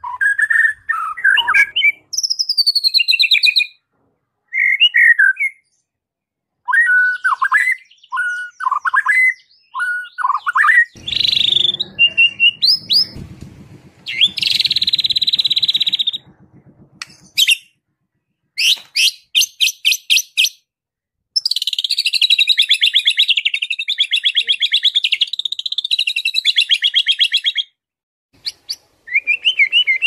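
White-rumped shama singing a varied song of loud whistled phrases broken by short pauses, including a long, fast, even trill in the second half. The song is full of 'isian', calls copied from other birds.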